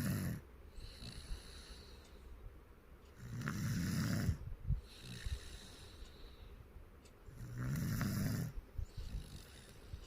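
Slow, regular snoring: a snore about every four seconds, each lasting about a second, with quieter breathing between.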